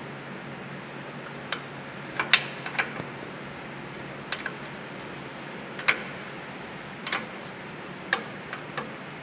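Steel spanner clinking on a nut on a lathe apron as the nut is worked loose: sharp, irregular metal clicks, roughly one a second, over a steady low hum.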